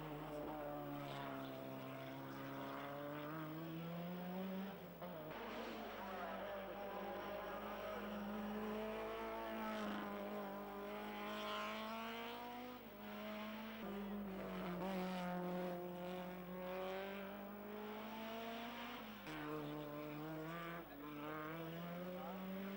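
Racing saloon car engines run hard up a hillclimb course, the pitch climbing under full throttle and dropping sharply at each gear change, about four times.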